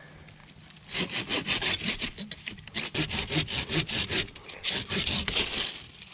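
Curved pruning handsaw cutting through the trunk of a small tree, in rapid back-and-forth strokes that start about a second in and stop just before the end.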